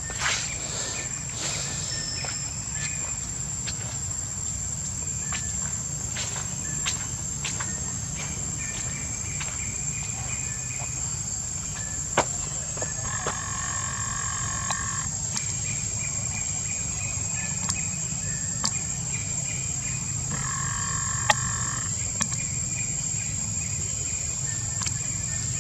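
Steady high-pitched insect buzzing. Twice, about halfway through and again near the end, a lower-pitched steady call joins in for a second or two, with faint scattered clicks and rustles throughout.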